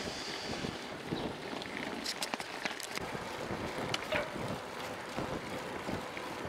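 Wind rushing over the microphone of a camera riding on a moving bicycle, a steady noise with a few light clicks and ticks about halfway through.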